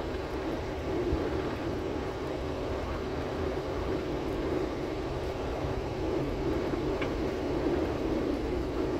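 Steady drone of an airliner's engines and rushing air heard inside the passenger cabin, in flight just after take-off.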